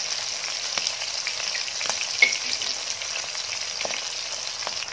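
Semolina-coated prawns deep-frying in hot oil in a wok, now cooking on their second side: a steady sizzle with scattered crackles and pops, and one louder click about two seconds in.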